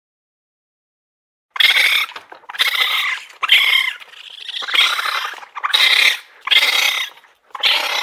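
Raccoon chittering in a run of short, raspy bursts, about one a second, starting about a second and a half in.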